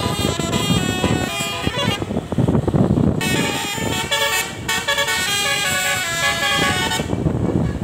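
Tunggal Jaya bus's multi-note 'basuri' telolet horn playing a tune of short notes stepping up and down, clearest in the second half, with engine and road noise underneath.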